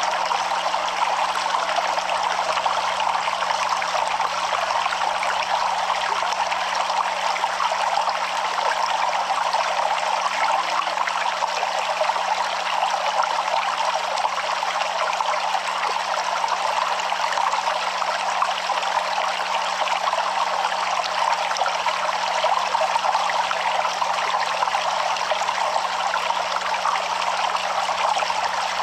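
Stream of running water flowing and trickling steadily, an even rush with no breaks.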